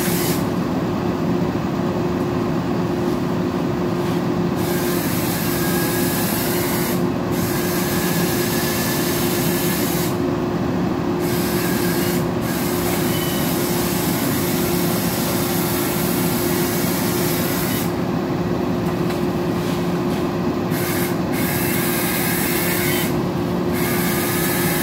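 Bucket truck's engine running steadily at one even pitch.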